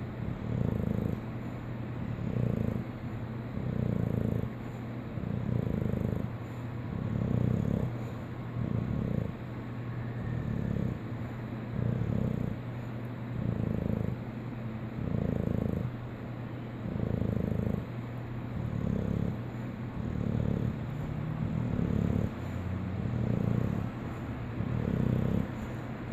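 Put-on snoring from someone pretending to be asleep: a steady, rhythmic snore about every second and a half.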